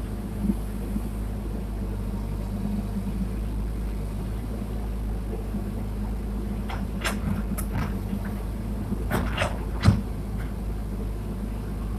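Excavator engine running steadily with a low drone, with a cluster of sharp knocks and clanks about two-thirds of the way in, the loudest one near the end.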